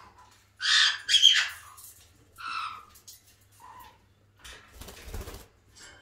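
White-bellied caique squawking in short harsh calls: two loud ones about half a second apart near the start, then softer single calls, with a brief rustle about five seconds in.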